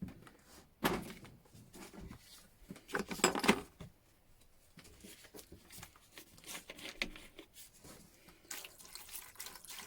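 Hand tools being scrubbed in water: splashing and scrubbing, with louder bursts about one and three seconds in, then quieter uneven rubbing.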